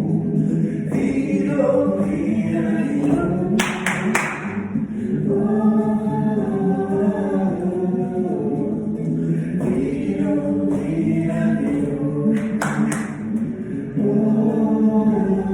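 Recorded song with a group of voices singing together in harmony. Two short noisy bursts cut through it, about four seconds in and again near thirteen seconds.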